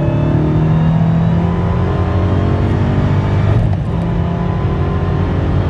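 Dodge Challenger Hellcat's supercharged 6.2-litre V8 at full throttle, heard from inside the cabin as the car accelerates hard. About three and a half seconds in the engine note breaks off briefly for an upshift of the manual gearbox, then pulls on.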